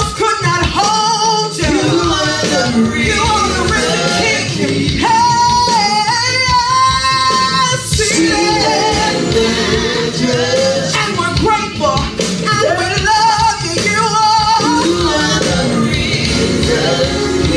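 Church worship team of women and a man singing gospel worship through microphones, over instrumental backing with a steady beat, with several long held notes.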